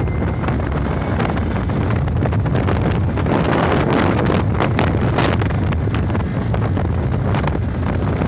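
Wind buffeting the microphone of a moving TVS Ntorq scooter, over the scooter's engine and road noise; the buffeting is hardest around the middle.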